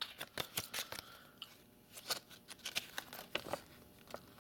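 Paper instruction leaflets being handled and unfolded by hand: a scatter of short paper crinkles and rustles.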